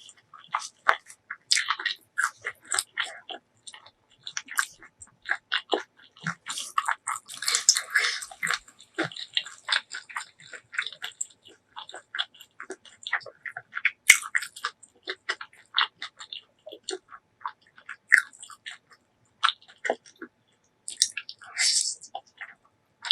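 Close-miked eating: a person chewing and biting, many short wet clicks and smacks, with two denser noisy stretches, one about seven to nine seconds in and one near the end.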